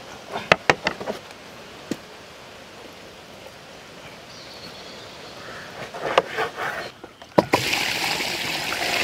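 A few sharp knocks in the first second and again around six seconds in, then, about seven and a half seconds in, water suddenly starts pouring from a plastic jug onto chunks of raw tuna in a large aluminium pot, a steady rushing splash that keeps going.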